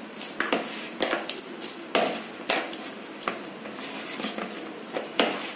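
A hand kneading mashed boiled potato in a plastic bowl: irregular knocks and clinks against the bowl, about one or two a second, as the fist presses and squeezes the potato into a dough.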